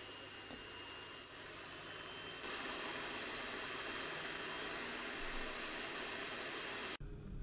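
Electric hand mixer running steadily, its twin beaters whisking egg batter in a stainless steel bowl; it gets louder about two seconds in and cuts off suddenly near the end.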